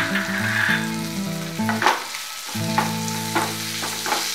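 A spatula stirring and breaking up boiled potatoes and peas in a frying pan of hot oil and spices: sizzling in the first second, then a handful of sharp scrapes and knocks of the spatula against the pan, with soft background music underneath.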